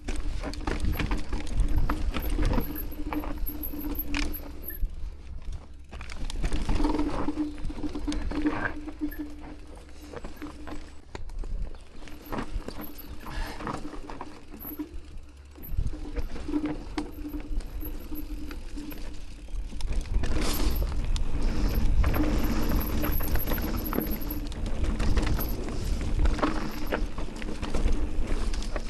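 Amflow electric mountain bike ridden down a rough trail: chain and parts rattling, tyres on dirt and rock, and irregular knocks and clicks over the bumps.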